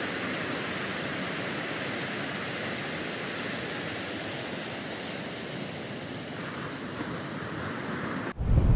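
Rough sea and wind, a steady, even rush of noise. Near the end it cuts suddenly to louder, low wind buffeting on the microphone.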